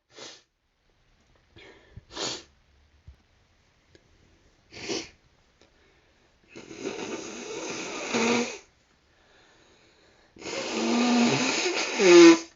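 A person sniffing three times, then taking two long, noisy, drawn-out breaths. The second ends in a loud voiced sneeze near the end.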